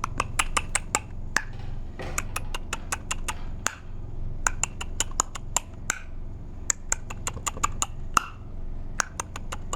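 Quick, irregular sharp clicks and taps, several a second, over a low steady hum.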